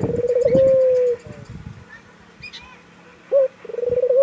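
Puter lokal, a domesticated Barbary dove, cooing: a rolling, trilled coo that settles into a long, slightly falling note. A short note and a second rolling coo follow about three seconds in.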